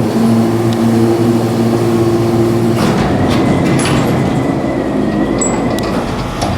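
Elevator running after its doors close: a steady hum for about the first three seconds, then a rushing travel noise with a faint high whine.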